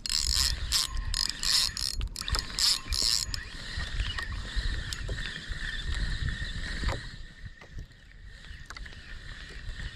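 Spinning reel's drag buzzing in quick clicks for about the first three seconds as a fish pulls line against the loose drag, then steadier reel noise that dies away about seven seconds in. Low knocks of water against the small boat run underneath.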